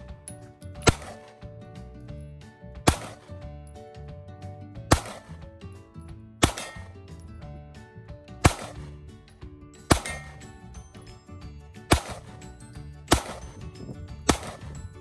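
Taurus G3 9mm pistol fired slowly, one shot at a time: nine sharp cracks, about one and a half to two seconds apart, each with a short ring-out. Background music plays faintly underneath.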